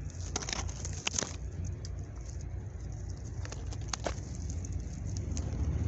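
Maple leaves and twigs brushing and crackling against the camera as it is pushed through the branches of a Japanese maple: a string of sharp little clicks, thickest in the first second and again near the middle, over a steady low rumble.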